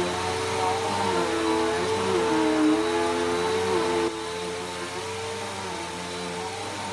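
Bissell PowerForce Helix Turbo upright vacuum cleaner running, its motor hum dipping in pitch and recovering several times; it gets quieter about four seconds in.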